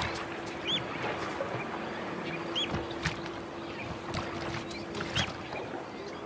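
A lion feeding at a carcass at the water's edge: wet tearing, snapping and sloshing of water as it bites and pulls at the meat. A bird gives short chirps a few times, about a second, two and a half, and five seconds in.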